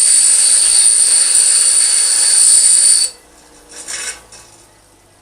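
Power grinder grinding steel, a loud hiss with a high whine that cuts off suddenly about three seconds in, followed by a short scrape a second later.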